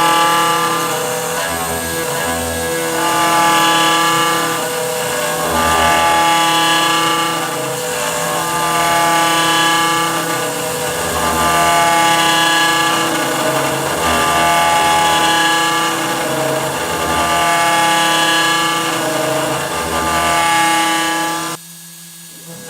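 CNC router spindle with an 8 mm carbide cutter milling aluminum: a pitched cutting whine that swells and fades in a repeating cycle about every two and a half seconds as the adaptive toolpath sweeps the cutter into and out of the material. It drops off suddenly near the end.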